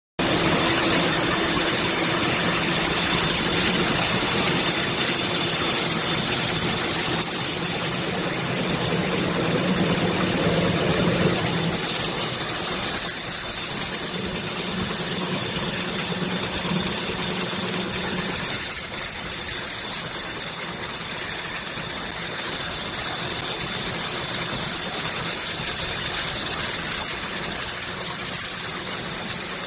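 Automatic drinking-straw packing and bundling machine running continuously: a steady mechanical whir with a low hum and a faint high whine, the hum dropping away about two-thirds of the way through.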